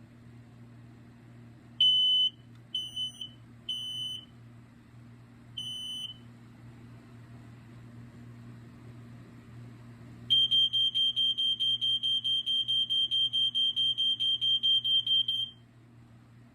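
Smoke alarm horn sounding on test: four short high beeps, then a long run of rapid, even pulses, about five a second, that cuts off sharply after about five seconds.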